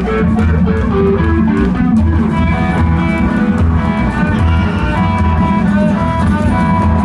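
Rockabilly band playing live, recorded from the audience: an electric guitar melody over a steady pulsing bass line.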